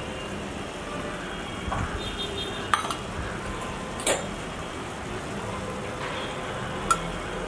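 A steel slotted spoon and a small steel bowl clinking three times, sharp and brief, about a second and a half and then three seconds apart, over a steady background noise.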